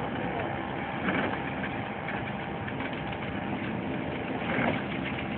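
Steady low engine drone from the passing motor yacht, with two brief louder sounds about a second in and near the end.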